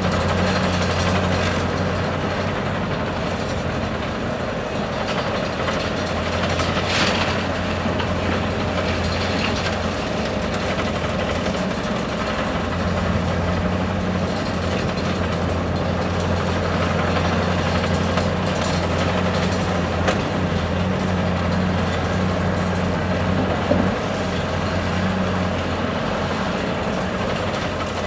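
Large diesel engine of a heavy excavator running steadily under load while loading trucks, its low hum dipping for a couple of seconds about ten seconds in. There is a brief hiss about seven seconds in and a few short knocks near the end.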